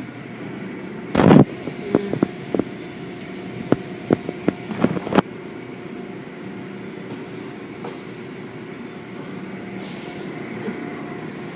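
Automatic tunnel car wash running: the steady hum of its machinery and water spray. A loud thump comes just over a second in, followed by a run of sharp knocks over the next four seconds.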